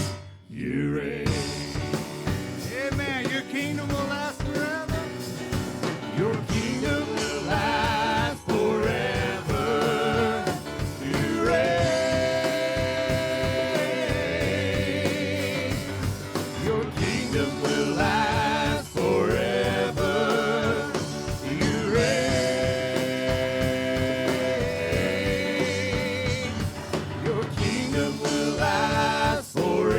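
Live church praise band playing gospel worship music without words, with long held, wavering melody notes over a full band accompaniment.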